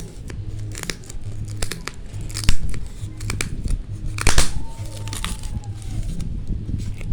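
Packaging of a tempered-glass screen protector being handled and opened: crinkling plastic, scattered clicks, a knock, and a short loud rip a little past halfway through.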